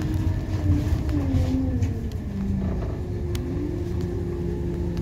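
Scania K280UB bus heard from inside the cabin: the diesel engine's low rumble under the whine of the ZF automatic gearbox. The whine steps down in pitch during the first half as the bus slows, then holds steady, with a few light rattles from the cabin.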